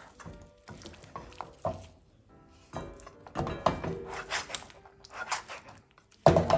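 Silicone spatula tossing fried pork chops in thick sauce in a nonstick pan: sticky, wet stirring broken by irregular knocks of the meat and spatula against the pan, the loudest near the end. Background music plays underneath.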